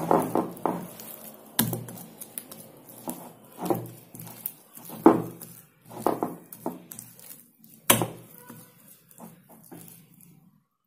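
A hand squelching and kneading wet maida-and-banana batter in a glass bowl, in irregular squishy strokes about every second, with a couple of sharp taps against the glass. The sound cuts off suddenly near the end.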